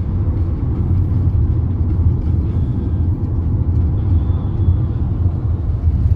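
Steady low rumble of a car travelling at road speed, heard from inside the cabin.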